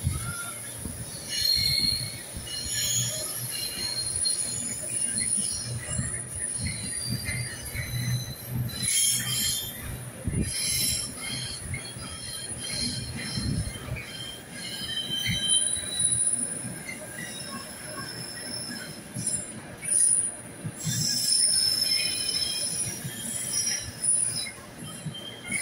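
Intermodal container freight train running through, its wagon wheels squealing: high squeals at several shifting pitches come and go over a steady low rumble of wheels on rail.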